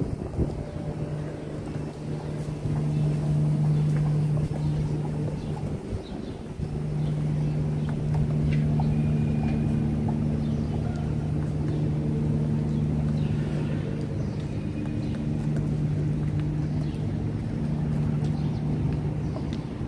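Steady low machine hum, an engine or motor running continuously, dipping briefly about six seconds in.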